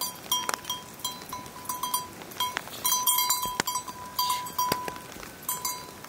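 Small livestock bells on grazing goats and sheep clinking irregularly, many short rings on one note, with scattered sharp ticks.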